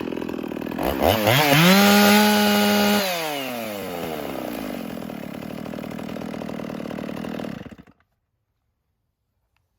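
Stihl MS 460 two-stroke chainsaw revving from idle to full throttle about a second in and holding it for a second or two, then winding slowly back down to idle. It is shut off about three-quarters of the way through. The saw is tuned to about 12,500 rpm at full throttle.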